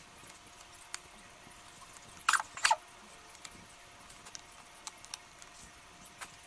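Steel chisel paring wood inside the mouth of a small wooden hand plane: two short, sharp scraping cuts about half a second apart in the middle, with a few faint ticks of the blade against the wood around them.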